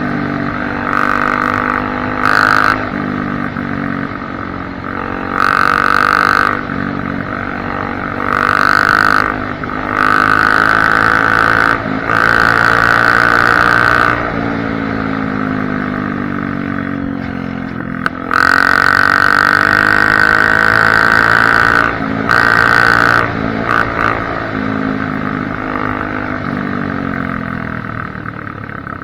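Honda CRF250F dirt bike's single-cylinder four-stroke engine with no baffle in the exhaust, running hard with the throttle opened and eased off again and again. Its pitch climbs and falls, and there are about seven louder, raspier bursts of a few seconds each at full throttle.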